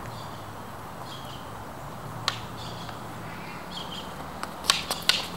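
Practice swords clacking together: a single knock about two seconds in, then a quick flurry of sharp clacks near the end as the blades meet. Birds call faintly in the background.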